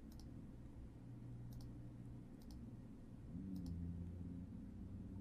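A few faint computer mouse clicks, spaced about a second apart, over a low steady room hum.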